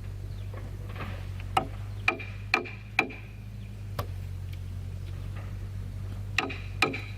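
Sharp hand-tool strikes on timber: a run of four knocks about half a second apart, a single one later, then two more near the end, several with a brief ringing tone, over a steady low hum.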